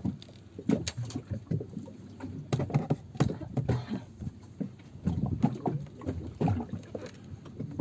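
Irregular knocks and water sloshing on a small fishing boat at sea, with faint voices now and then.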